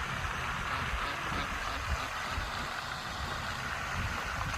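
Steady outdoor background noise: an uneven low rumble with a constant hiss above it, and no single distinct event.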